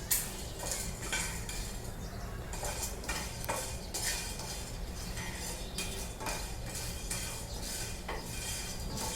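A spoon stirring whole spices as they dry-roast in a pan: irregular scraping and rattling strokes, a few a second, over a steady low hum.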